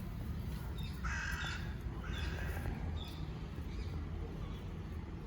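Two short, harsh animal calls about a second apart, over a steady low rumble.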